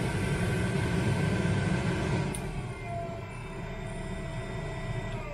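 Heater blower fan motor of a 1978 Chevy Nova running with a steady rush of air, then slowing about halfway through as the fan speed switch is wiggled, its whine falling in pitch near the end. The switch only works when wiggled, which the owner puts down to dirty contacts.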